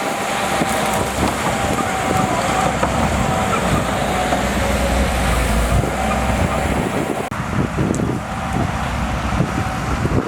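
Shantui DH17C2 crawler bulldozer working: its diesel engine runs with a steady whine over clanking. The deep engine rumble eases about seven seconds in.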